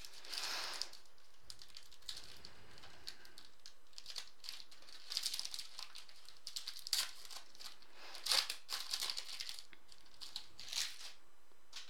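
Foil wrapper of a 2015 Panini Crown Royale football card pack being torn open and crinkled by hand: irregular bursts of crackling, busiest from about five to ten seconds in.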